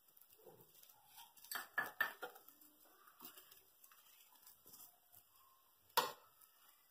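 Faint clicks and scrapes of a metal spoon and then a flat steel spatula on a non-stick tawa as oil is spread over a paratha. There is a cluster of small taps about one and a half to two seconds in, and one sharper clink near the end.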